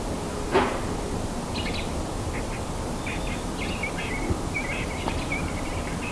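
Outdoor ambience: a steady background hiss with scattered short, high bird chirps and calls, and one brief louder sound just after the start.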